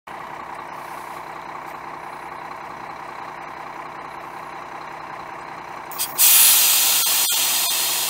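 Cummins ISM 11-litre inline-six turbo diesel of a 2001 Blue Bird LTC-40 coach bus idling steadily, then about six seconds in a sudden loud hiss of compressed air from the air brakes, fading off slowly.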